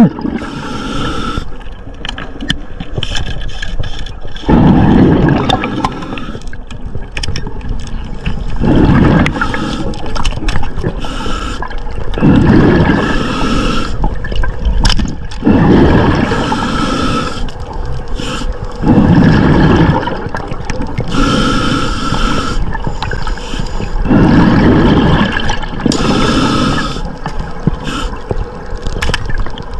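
Bubbling, gurgling underwater water noise on an underwater camera, surging loudly about every three to four seconds.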